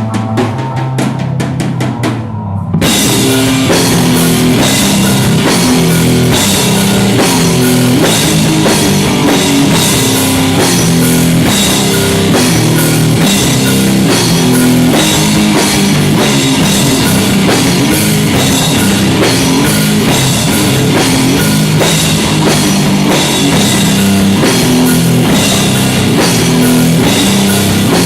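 Live rock band playing loudly: a drum kit beat on its own for the first couple of seconds, then the rest of the band comes in about three seconds in with heavy bass notes and cymbals over the drums.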